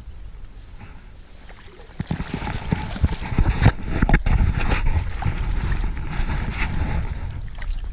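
A pike strikes a Spintube lure at the surface of shallow water. From about two seconds in there is splashing and thrashing, with sharp splashes in the middle. Wind rumbles on the microphone underneath.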